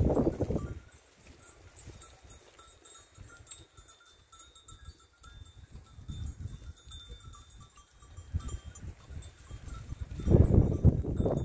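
Low rumbling of footsteps and handling on a rocky, grassy slope during the first second and again near the end. In the quieter stretch between, faint distant animal sounds.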